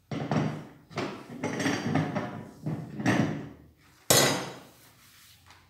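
Gas cooktop burner caps and grates knocking and clattering as they are handled and set down during cleaning, about six knocks, the sharpest about four seconds in.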